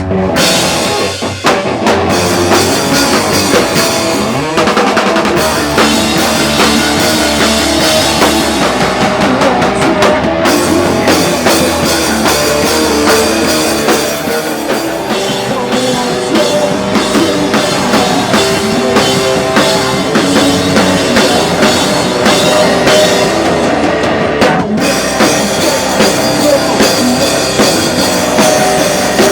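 Live rock band playing loud, with a full drum kit and guitars; the band comes in right at the start and the drums break off briefly twice.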